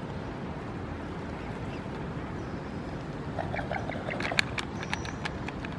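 Mute swans giving a quick run of short, soft calls over steady background noise, starting a little past halfway. A couple of sharp clicks come during the calls.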